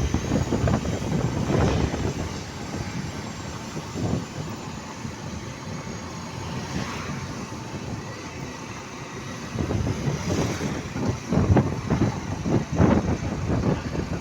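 Road vehicle noise: a low, uneven rumble, louder at the start, quieter in the middle, and louder again from about ten seconds in.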